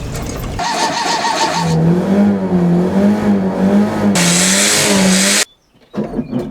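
Fiat 850's starter cranking the engine, which does not catch: a wavering, pulsing whine that cuts off abruptly about five and a half seconds in.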